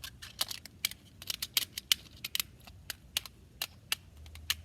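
Small plastic fidget toys being handled and rearranged by hand: a quick, irregular run of light clicks and taps, about four or five a second.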